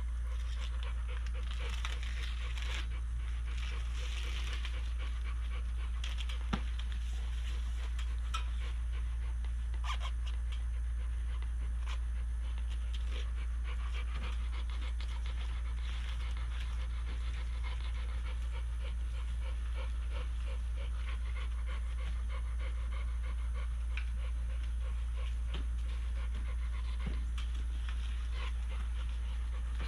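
A dog panting steadily close by, over a constant low rumble.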